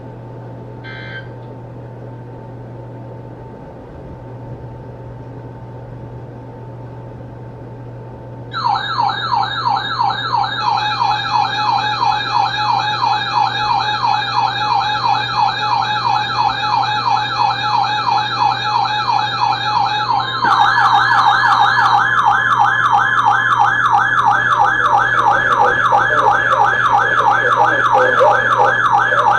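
Faint hiss and hum, then about eight seconds in an electronic alert alarm starts: a loud, fast, repeating up-and-down siren-like warble. About twenty seconds in, the warble changes to a louder one that keeps going.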